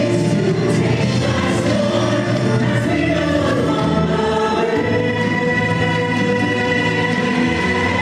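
Musical-theatre song: a chorus of voices singing together over instrumental backing, settling into long held notes in the second half.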